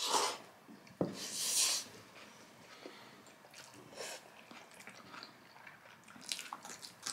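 Close-up eating sounds of spicy instant fire noodles: two short slurps in the first two seconds, then soft chewing with small wet clicks.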